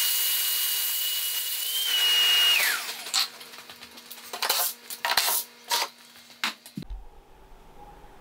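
Workshop vacuum sucking sawdust out of routed inlay grooves in an oak tabletop, a steady hiss with a high whine; it is switched off about two and a half seconds in and its whine falls away as the motor spins down. A few short knocks and rustles follow, and music comes in near the end.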